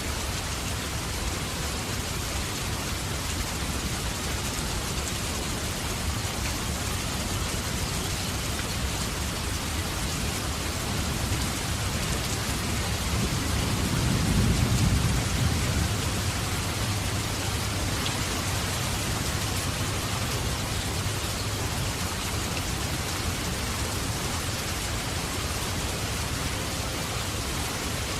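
Heavy rain falling steadily, with a low rumble of thunder swelling and fading about halfway through.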